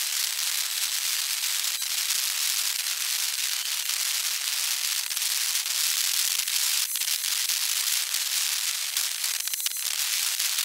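A steady high-pitched hiss full of fine, dense crackles, with no low end, from outdoor sound played back fast in a time-lapse. There are a few sharper clicks, about two seconds in, seven seconds in and near the end.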